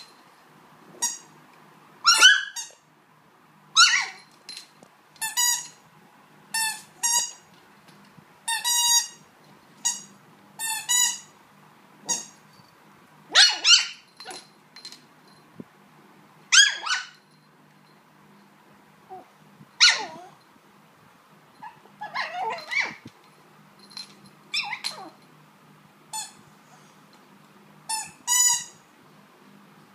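Squeaky dog toy squeaked over and over as two small dogs chew at it. The squeaks come in short bursts a second or two apart, often two close together, with a few louder, sharper ones among them.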